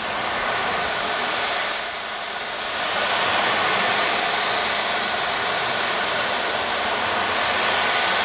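Ocean drum: beads rolling across the head of a frame drum as it is tilted back and forth, a steady surf-like hiss that eases about two seconds in and swells again.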